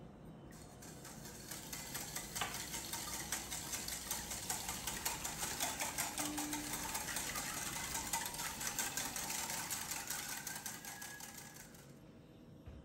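Wire balloon whisk beating milk in a glass measuring jug: a fast, steady run of light clicks as the wires strike the glass, building over the first couple of seconds and stopping near the end.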